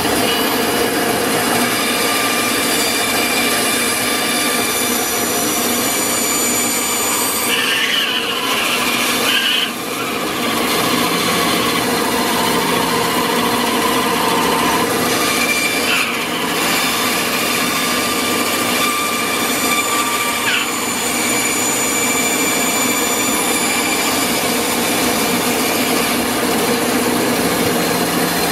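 Bench bandsaw running steadily, its blade cutting small pieces of wood, with brief shifts in the sound as a piece is fed through, about a third of the way in and again a little past halfway.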